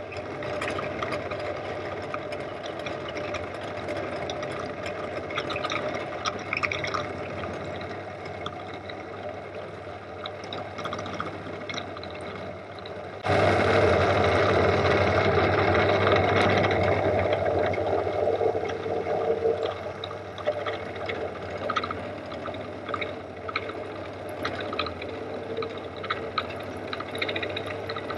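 Pillar drill running with an end mill cutting a Woodruff key slot into a metal shaft from a 1955 Fordson Major tractor: a steady motor hum under a crackling, hissing cutting noise. About 13 seconds in, the cut suddenly gets louder and stays so for several seconds before easing back.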